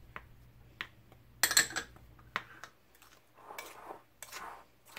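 Spoon stirring flour in a ceramic plate: a few sharp clinks against the plate in the first half, then softer scraping swishes through the flour.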